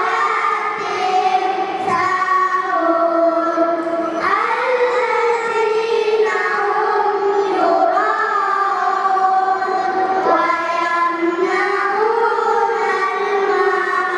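A group of children chanting in unison, a continuous melodic line of long held notes that step up and down.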